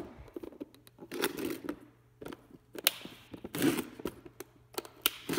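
Handling noise from clear plastic tackle boxes and lures being moved about: a scatter of sharp plastic clicks and three short rustling bursts.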